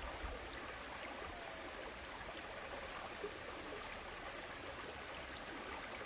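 Shallow rocky river flowing over stones: a steady rush of running water, with a couple of faint, short high whistles.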